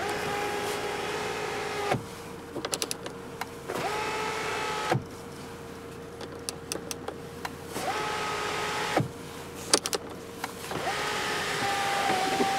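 Electric sunroof motor of a 1999 Volkswagen Passat B5 whining in four runs of one to three seconds each as the glass panel moves, each run stopping abruptly, with clicks of the overhead switch between runs.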